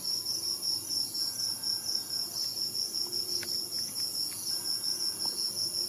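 Crickets chirping in a steady, rapid rhythm of about six or seven pulses a second, over a continuous higher insect buzz.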